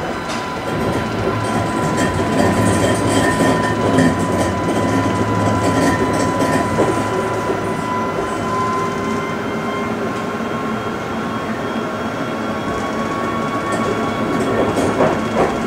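Tram running along its track, heard from inside the driver's cab: a continuous rumble of wheels on rail with a steady high whine over it, and a few clicks near the end.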